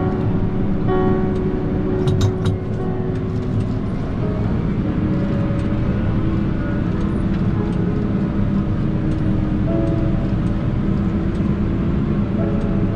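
Case IH Optum 300 tractor's six-cylinder diesel running steadily at road speed, a constant drone heard from inside the cab, with music playing over it.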